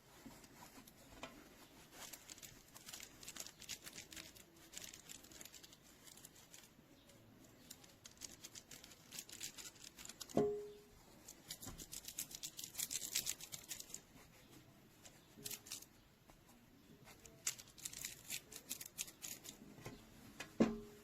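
A dog chewing and gnawing on a squeaky plush dog toy: scattered clicking and crackling, with a short squeak about ten seconds in and another near the end.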